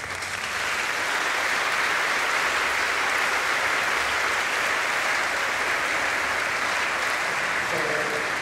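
Audience applauding, many people clapping together at a steady level.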